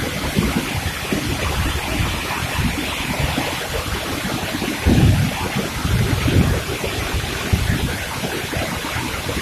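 Waterfall heard close up: a steady, loud rush of water falling onto rocks and into its plunge pool. Low buffeting on the microphone comes in puffs, loudest about five seconds in and again a little later.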